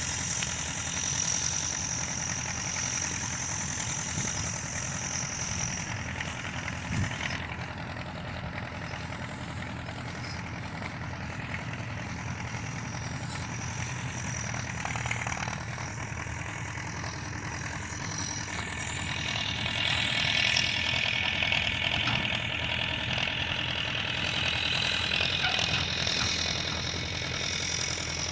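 Tractor engine running steadily with an even low drone; a hissing noise joins it about two-thirds of the way through.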